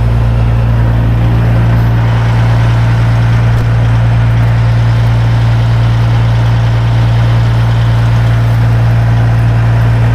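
Peterbilt semi truck's diesel engine idling steadily at a raised idle, bumped up because the engine has not been warmed up.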